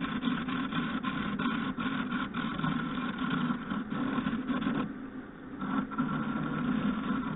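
Wood lathe running with a turning tool cutting a spinning banksia nut blank: a steady hum under a rough scraping cut. The cut breaks off briefly about five seconds in, then resumes.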